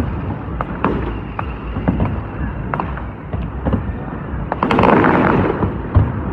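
Fireworks going off: a run of sharp bangs and pops, with a louder, longer crackling burst about three-quarters of the way through and a sharp bang near the end.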